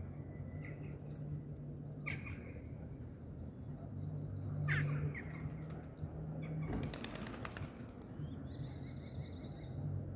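Birds calling: two sharp falling calls, a brief rapid rattle about seven seconds in, and a run of repeated high notes near the end, over a steady low hum.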